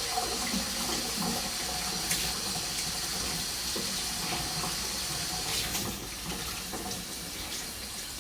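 Kitchen tap running water in a steady stream.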